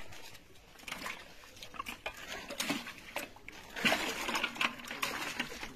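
Live fish flapping and slapping against each other and the wet walls of a pot as a hand grabs among them, with short splashes and knocks that get busier and louder about four seconds in.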